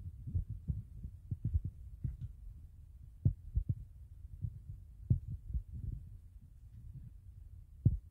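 Dull, uneven low thumps and rumbles, about two a second, from footsteps and handling of a phone being carried while walking. The strongest knocks come about three seconds in and near the end.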